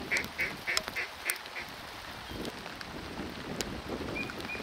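A rapid run of short, evenly spaced duck calls, about three a second, that stops about a second and a half in, over a steady hiss, with a few sharp clicks and a faint short whistle near the end.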